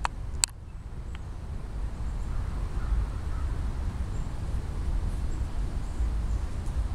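Ambience beside a shallow stream running over rocks: a steady low rumble, a sharp click about half a second in, and faint crow caws.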